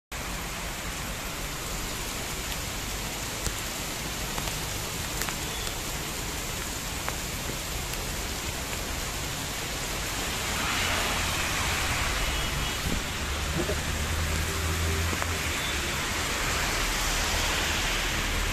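Heavy rain falling on a paved street, a steady hiss. About ten seconds in it grows louder, with a low rumble added.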